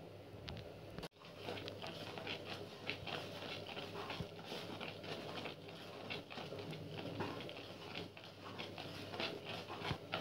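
Wooden spatula scraping and tapping against an aluminium kadai while a thickening milk-and-sugar sandesh mixture is stirred, in a run of short, irregular scrapes and taps.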